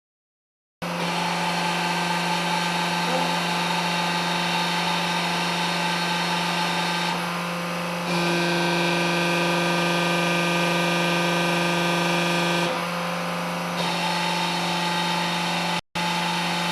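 Hydraulic hose crimper's electric motor and pump running with a steady hum, starting abruptly just under a second in. About eight seconds in it grows louder and a higher whine joins for roughly four and a half seconds, then drops back to the steady hum.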